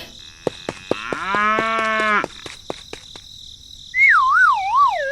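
A few sharp clicks, then a drawn-out moo-like call lasting about a second. Near the end comes a whistling tone that wavers up and down in pitch.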